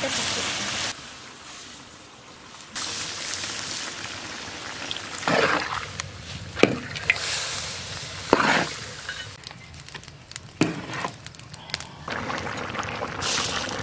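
Water poured into a large kadai of frying pork, hissing and sizzling as it hits the hot pan, then the meat being stirred with a few sharp scrapes of the spatula against the pan.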